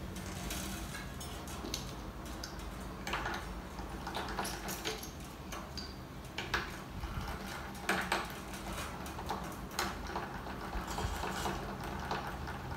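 Hands working the steel strings at a 12-string acoustic guitar's headstock, seating them on the tuning posts: scattered light metallic clicks and rustles.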